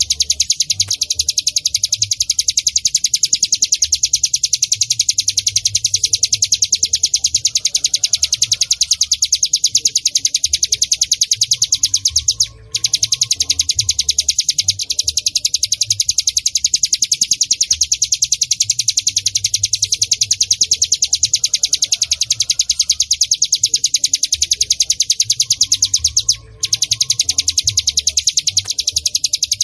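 Ciblek gunung (hill prinia) calling: a rapid, unbroken run of sharp, high repeated notes, with two short breaks, one about halfway through and one near the end.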